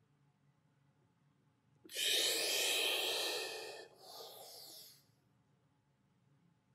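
A man's heavy breath close to the microphone, paced with a prone back exercise of raising opposite arm and leg: one long breath of about two seconds, then straight after a shorter, fainter one.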